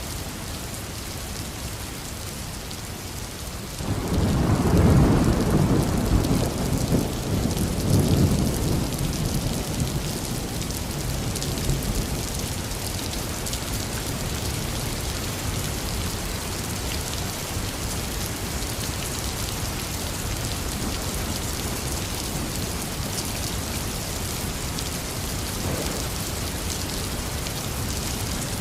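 Heavy rain falling steadily, with a roll of thunder that breaks out suddenly about four seconds in, peaks again a few seconds later and dies away into the rain.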